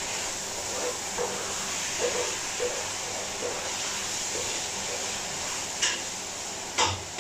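Food sizzling steadily in a pan on a gas stove, with faint short squeaks at intervals and two sharp clinks of metal cookware near the end.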